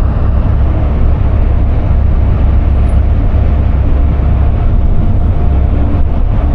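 Steady, loud low rumble of a moving vehicle, with a faint steady hum running through it.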